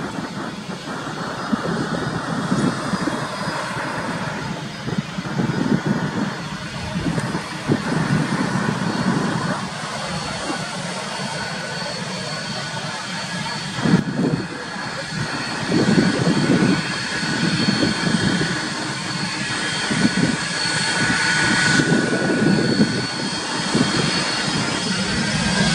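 Pratt & Whitney PW4060 turbofans of a Boeing 767-300ER at taxi thrust: a steady high whine over an uneven low rumble, the whine rising in pitch near the end.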